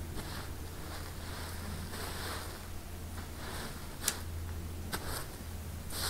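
Shovel blade digging and scraping through loose potting soil on a plastic tarp, in a run of soft gritty scrapes, with two sharp ticks about four and five seconds in.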